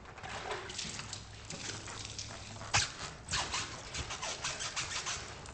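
Waterboarding: water splashing onto a cloth over a man's face, in rapid irregular splatters from about three seconds in, mixed with his muffled gasping. A single sharp knock comes just before the splashing.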